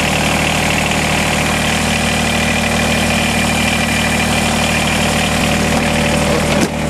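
Kubota BX24 compact tractor's three-cylinder diesel idling steadily, heard close up at the open engine bay. It is warming up just after a cold start at 28 °F without glow plugs.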